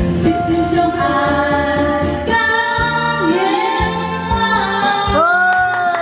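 A woman sings into a karaoke microphone over a backing track with a steady beat. She holds a long note that begins near the end.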